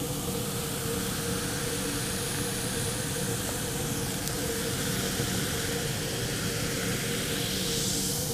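Kool-Aid fizzing in a plastic cup as citric acid and baking soda react in it and give off carbon dioxide: a steady hiss of bubbles, a little brighter near the end.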